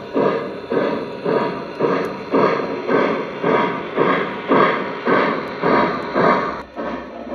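Lionel O-gauge Greenbrier 4-8-4 model steam locomotive's onboard sound system playing steady steam chuffs, about two a second, as the engine runs.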